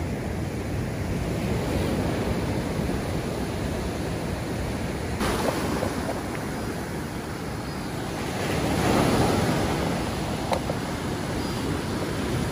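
Ocean surf breaking and washing up a sand beach, a steady rushing wash; a wave swells louder about nine seconds in.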